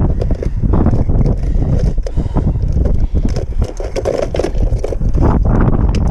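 Strong wind buffeting the microphone in a constant heavy rumble, with choppy waves slapping and splashing irregularly against a plastic kayak hull.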